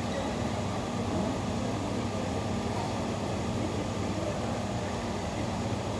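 Steady low hum and rumble of background noise, even throughout, with no distinct hits standing out.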